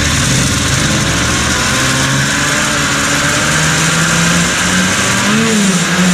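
1980 Yamaha Enticer 300's two-stroke engine idling unevenly, with a short blip of the throttle near the end. It is running poorly on its freshly cleaned carburetor, which the owner thinks points to a fuel pump that needs replacing.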